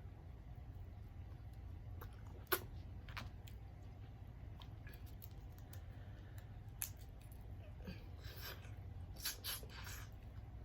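Eating sounds from a seafood boil: scattered sharp clicks and crunches of shells being cracked and chewed, the loudest about two and a half seconds in, with a cluster of crackles near the end.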